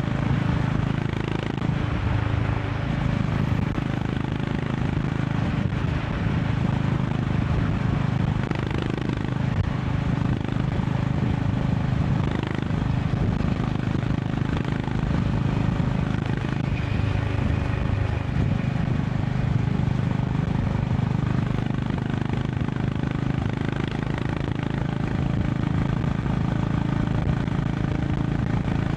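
Honda CB350 RS's single-cylinder engine cruising at a steady pace on the highway, heard from the rider's position, with the rush of wind and road noise over it.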